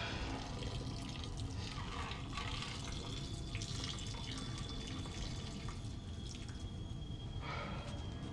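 Water running and splashing in a sink, over a low steady rumble.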